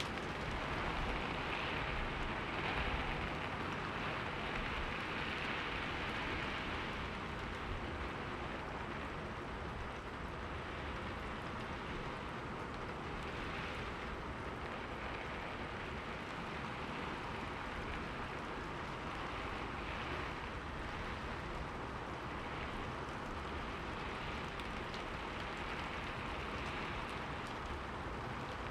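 Steady rainfall, a continuous even hiss with faint scattered drops pattering on a surface, a little louder in the first few seconds.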